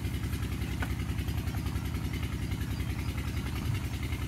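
Tube-well water pump engine running steadily, a low, even pulsing hum with a fast regular beat.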